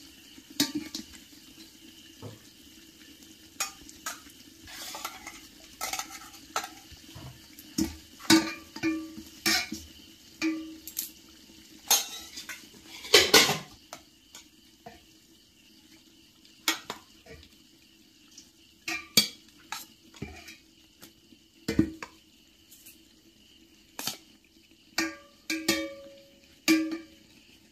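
Metal spoon scraping and clinking against an aluminium cooking pot as rice is spooned in and spread over the biryani gravy. The clinks and knocks come at irregular intervals, several leaving the pot ringing briefly.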